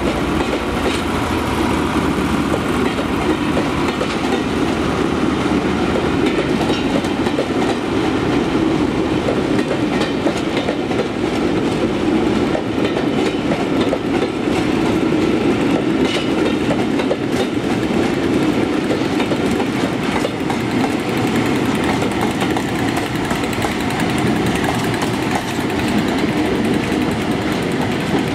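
Locomotive-hauled train of maroon coaches and a Class 57 diesel locomotive passing: a steady rumble of wheels on rails, with scattered clicks as the wheels cross rail joints.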